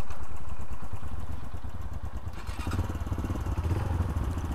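Yamaha 125 motorcycle's single-cylinder engine running, a steady rapid pulsing note that grows fuller about two and a half seconds in.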